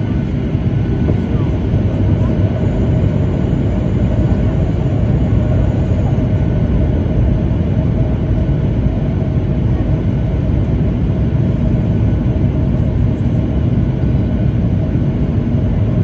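Steady cabin noise of a passenger jet in flight: a constant low rumble of engines and rushing air, heard from a window seat.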